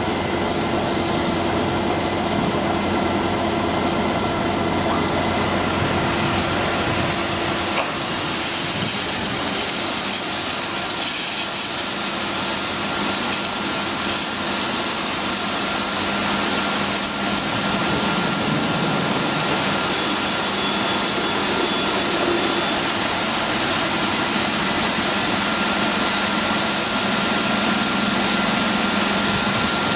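A truck's engine runs with a low steady hum for the first several seconds. About seven seconds in, the truck-wash arch's water jets take over with a steady, loud hiss of spray, and a thin steady high whine runs through it.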